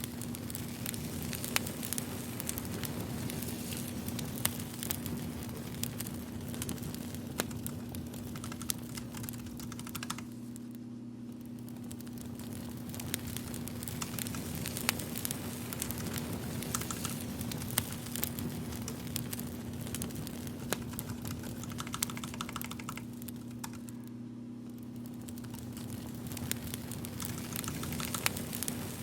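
Crackling fire: a steady hiss with irregular sharp pops and snaps, the hiss dropping away briefly twice.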